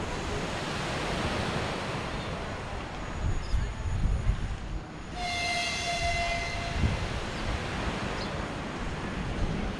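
2ES4K 'Donchak' electric locomotive sounding its horn once, about five seconds in: a blast of a second and a half, a high whistle over a lower tone, above the running noise of the approaching train and the steady rush of wind and surf.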